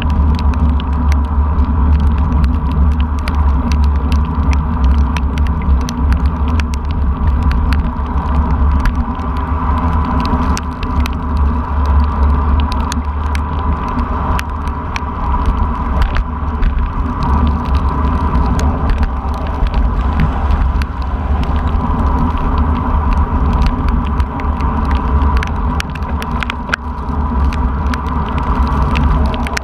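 Heavy wind rumble on an exposed action-camera microphone moving through heavy rain, with a steady hiss and a dense scatter of sharp taps from raindrops hitting the camera housing. A steady tone runs underneath.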